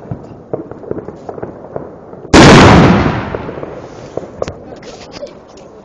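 Fireworks: one very loud close bang about two seconds in that rumbles away over a second or so, against a steady crackle of distant firecrackers.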